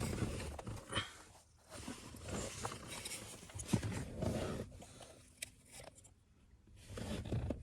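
Faint scraping and light clicks of the plastic center console trim being slid and worked loose by hand, with a quiet lull near the end.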